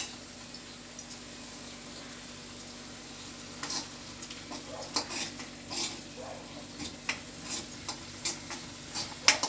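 A spoon stirring and scraping onion paste frying in a karahi, in irregular scrapes starting about three and a half seconds in, over a faint steady sizzle; one sharp clink near the end.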